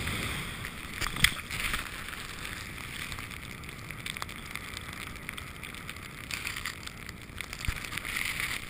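Steady hiss of a rider sliding fast over snow, with rushing air on the microphone. A sharp knock about a second in and a few lighter clicks and scrapes over it.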